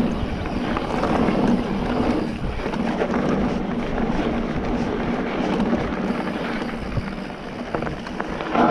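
Electric mountain bike being ridden over a rough trail: tyres rolling with a steady rumble and frequent knocks and rattles, with wind buffeting the microphone.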